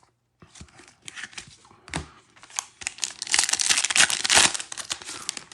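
Foil wrapper of a trading-card pack crinkling and tearing open, with small scattered clicks of cards being handled before it; the tearing crinkle is loudest a little past the middle.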